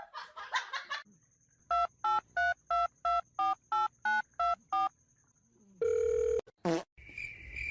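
Telephone keypad tones: ten short two-tone beeps at about three a second, as a number is dialled. They are followed by a longer steady tone and a brief rising squeal.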